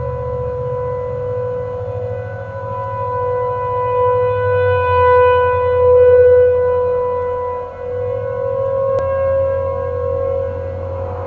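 Several outdoor warning sirens, ASC T-128s and Federal Signal Thunderbolt 1000ATs, sounding a steady Alert tone together. The sound swells and fades in loudness as the rotating sirens turn toward and away from the recorder, loudest about the middle.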